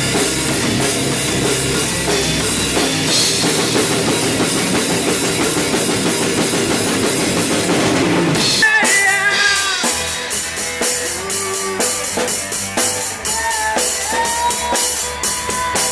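Rock music played on drum kit and guitar: dense and full for about the first nine seconds, then sparser drum and cymbal strikes under single sustained notes that bend in pitch.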